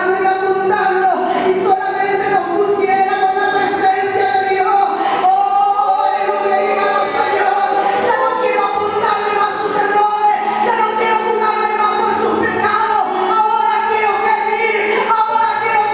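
A woman singing a worship song into a microphone, with long held notes.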